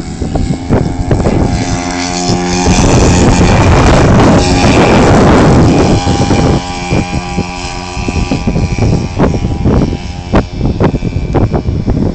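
Two radio-control P-47 model planes, each with a 62cc two-stroke petrol engine, running at full throttle on a formation takeoff. The engines are loudest from about two to six and a half seconds in as the planes pass and climb away, with gusts of wind buffeting the microphone.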